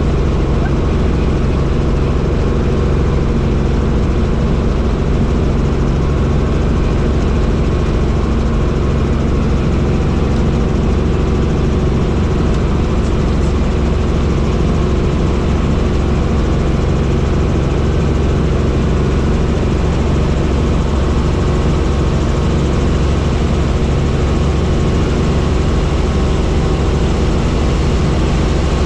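Helicopter in flight, its rotor and engine giving a loud, steady drone.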